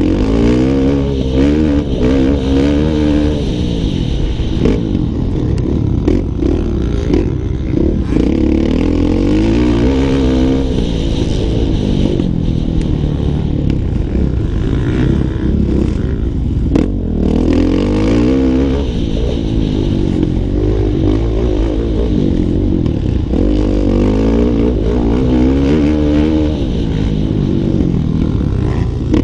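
Motocross dirt bike engine ridden hard on the track, heard close from the rider's own bike: the revs climb and drop back again and again through the gears and corners.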